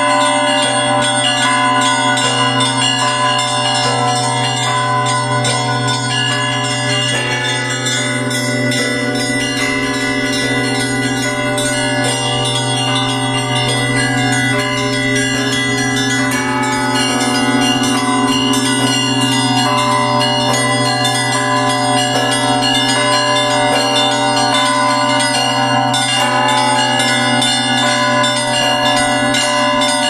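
Russian Orthodox bell ringing (zvon) on a set of bells in an open wooden belfry: many small bells chime quickly and steadily over the long, steady hum of a larger bell, without a break.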